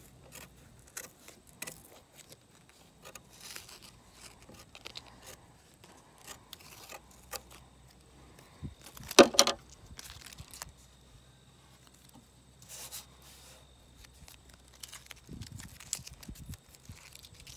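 Scissors cutting and handling strips of masking tape: scattered small snips, crackles and rustles, with one much louder noise about nine seconds in.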